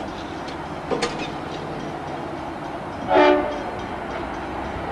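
Diesel locomotive horn giving one short blast about three seconds in, several notes sounding together. Underneath is the steady running noise of the approaching train.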